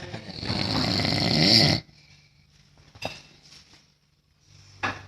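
A sleeping man snoring: one long, rattling snore that grows louder for about a second and a half, then stops abruptly. Two short sharp clicks follow, one near the middle and one near the end.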